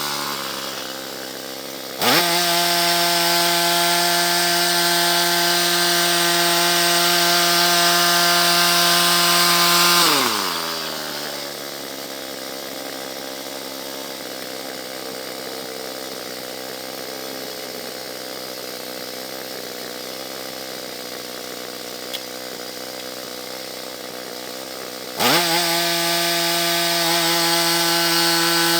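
Gasoline engine of a Harbor Freight band sawmill running the band blade at high speed. It dips at the start and picks up again about two seconds in, then winds down to a slower idle about ten seconds in, and snaps back to full speed near the end.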